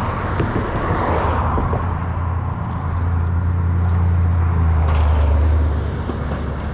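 A motor vehicle's engine running close by, a low steady hum that grows louder around the middle and then eases off, with road or tyre noise.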